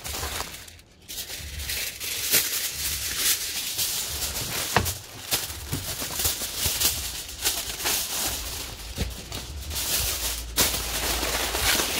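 Aluminium foil crinkling and crackling as a sheet is pulled off the roll and wrapped around a foil parcel, with a brief lull about a second in.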